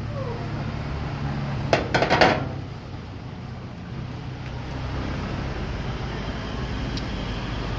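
A quick clatter of metal parts, several clinks and knocks in quick succession about two seconds in, over a steady low hum of street traffic.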